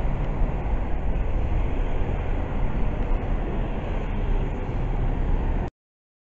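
Steady road traffic noise, a continuous low rumble from cars around a roundabout, cutting off suddenly about a second before the end.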